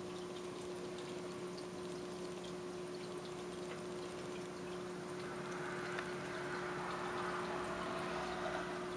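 Aquarium water trickling and bubbling, with air bubbles streaming through the tank, over a steady low hum; the trickling grows a little louder about five seconds in.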